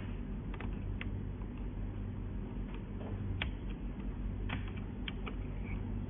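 Scattered light clicks and taps, about a dozen in irregular clusters, over a steady low hum.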